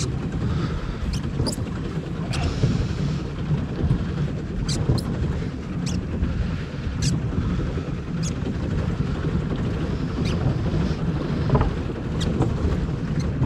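Wind buffeting the microphone with water rushing against the hull of a small boat under way, and a dozen or so sharp clicks scattered through it.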